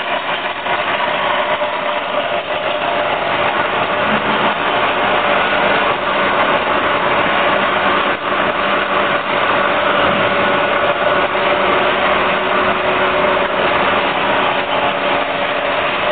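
Automatic screw packing machine running, its ten vibratory bowl feeders giving a steady mechanical buzz and rattle.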